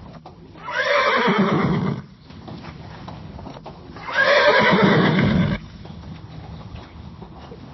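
A horse neighing twice, each whinny lasting about a second and a half and falling in pitch toward a low, rough end.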